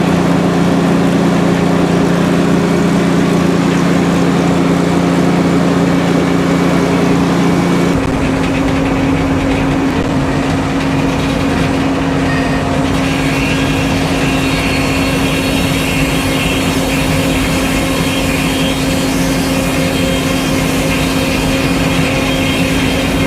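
Sawmill engine running steadily. About eight seconds in its low note changes and turns rougher, and from about thirteen seconds a higher whine joins it.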